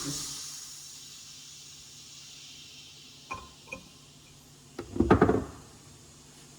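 Metal tools or parts clinking against each other: two light clinks, then a short loud metallic rattle about five seconds in. A hiss fades out in the first second.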